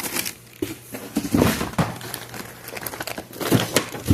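Fireworks packaging crinkling and rustling in irregular bursts as the packs are handled and moved, with small knocks. The sound picks up about a second and a half in and again near the end.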